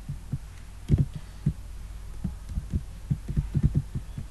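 Computer keyboard keystrokes, heard as dull low thumps at an irregular typing pace and bunched more closely near the end, over a steady low hum.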